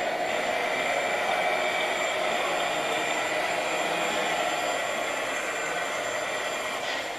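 Steady whirring of a radio-controlled scale excavator working its boom and bucket, with a faint, thin, high whine held throughout.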